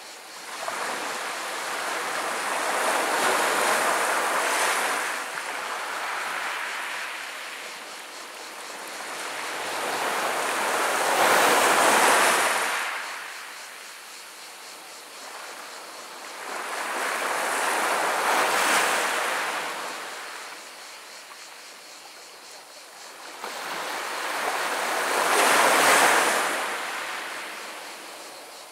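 Small sea waves washing up over a pebble beach. Four waves come in about seven seconds apart, each swelling and then fading away.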